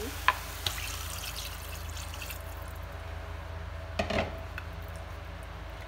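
Water poured into a stainless-steel pot for about two seconds, then stopping; about four seconds in, a single knock of wooden chopsticks against the pot as the contents are stirred. A steady low hum sits underneath.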